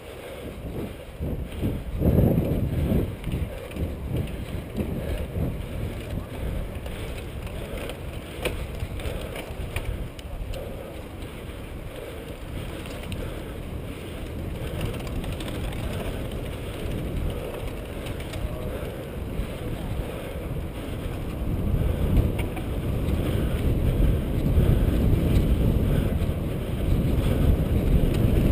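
Wind rumbling on the microphone of a bike-mounted camera as a mountain bike rides a dirt cross-country track, with rattles and knocks from the bike over rough ground. It gets louder about three-quarters of the way through, as the bike speeds downhill.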